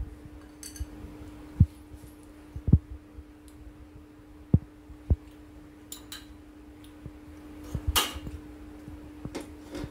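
Someone eating a mouthful of mushroom gravy, chewing close to the microphone: a few sharp low thumps and soft clicks over a steady low hum.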